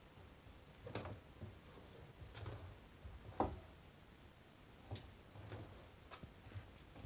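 A cat moving about on a low shelf and the floor: quiet, scattered knocks and taps from its paws and body, unevenly spaced, the loudest about three and a half seconds in.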